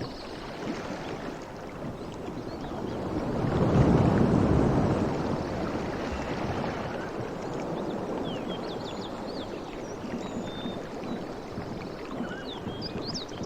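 Ocean waves washing in: a wave swells to its loudest about four seconds in and then draws back into a steady surf hiss. Faint short high chirps come near the start and the end.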